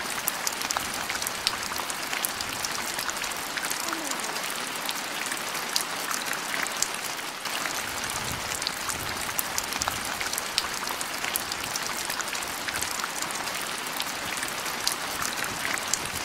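Water splashing and trickling at the stream's edge: a steady rush of water with many small drips and splashes throughout.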